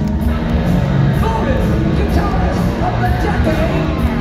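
Live rock band playing loudly through a concert PA, heard from the audience: dense drums and bass with a lead line on top that bends in pitch.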